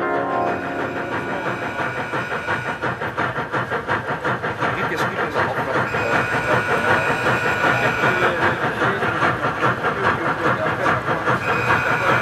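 Model steam locomotive running on a rolling-road test stand: rapid, rhythmic steam-engine chuffing with hiss and a running clatter, growing louder over the first half. A steady high whine joins about halfway through.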